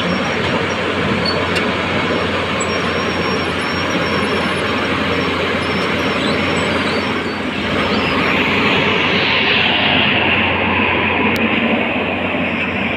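Tata Hitachi EX210LC crawler excavator working under load as it climbs onto a lowbed trailer: the diesel engine runs hard and the steel tracks and bucket clank and scrape against the trailer's steel deck. A higher, hissing noise grows louder about eight seconds in.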